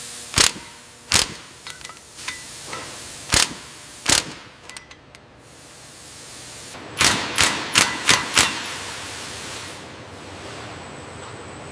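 Sharp, loud clanks from assembly-line machinery over a steady factory hiss: four spaced hits in the first few seconds, then a quick run of five about seven seconds in.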